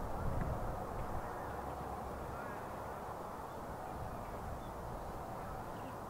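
Dornier 228's twin turboprop engines heard faintly in the distance as a low, steady rumble that dies down a little in the first second or so. A few faint bird calls sound above it.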